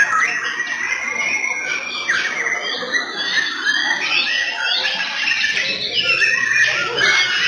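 Several white-rumped shamas (murai batu) singing at once in competition, a dense overlapping mix of rising and falling whistled phrases.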